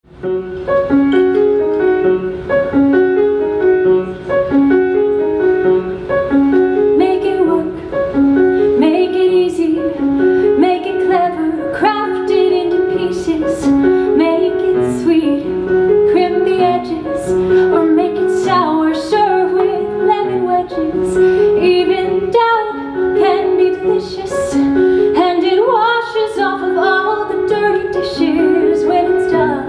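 Live grand piano playing a repeating accompaniment figure, with a woman singing over it.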